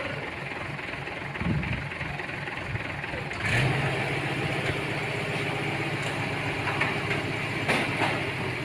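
A vehicle engine running at a steady idle, becoming clearly louder about three and a half seconds in.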